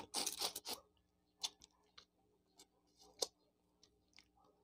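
Close-miked eating of shrimp: a burst of crisp crunching and clicking in the first second as a shrimp is bitten, then a few scattered sharp clicks.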